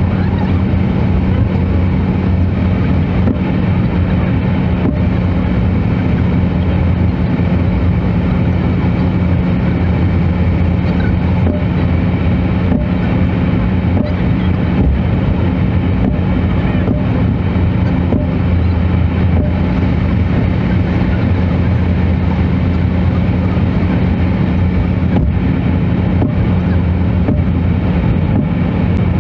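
Steady noise of a car driving at speed on a motorway: engine and tyre drone with a constant low hum, unchanging throughout.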